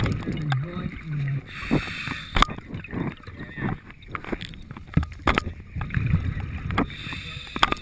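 Muffled underwater noise through a hand-mounted GoPro housing as a diver moves inside an intake pipe: a low rumble with gurgling and scattered sharp clicks and knocks.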